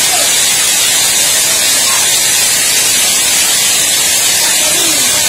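Heavy hail falling on a paved yard: a loud, steady hiss of countless hailstones striking the ground.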